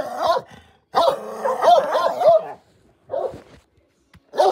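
Pet dog barking: a quick run of several barks starting about a second in, then short single barks after gaps.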